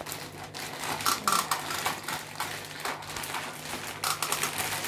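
Clear plastic bag crinkling and rustling in irregular crackles as a plastic toy crocodile is pulled out of it.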